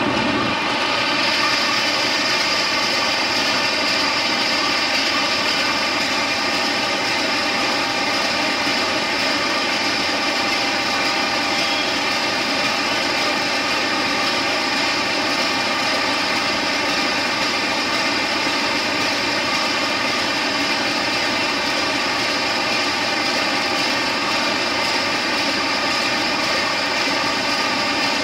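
GE U18C (Indonesian class CC201) diesel-electric locomotive standing at idle: a steady engine hum with a high whine above it, unchanging throughout.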